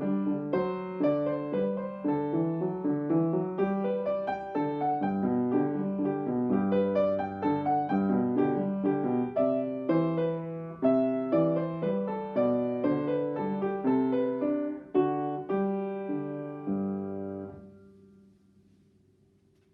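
Piano played note by note at a steady pace, the end of a short student piece: a final chord about 17 seconds in is held and fades away, leaving near silence.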